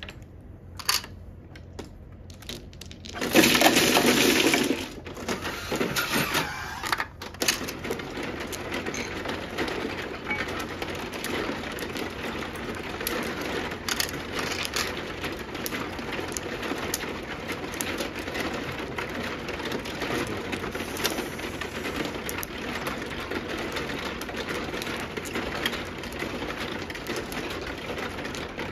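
Plastic mahjong tiles clattering on an automatic mahjong table: a loud rush of tiles being swept into the table about three seconds in, then steady clicking and clacking of tiles as the new hands are set up and play starts.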